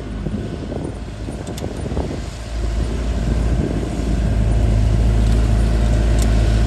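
An old open-top jeep's engine running as it drives through a shallow river, with water splashing around its wheels. The sound gets louder a few seconds in as the jeep comes closer.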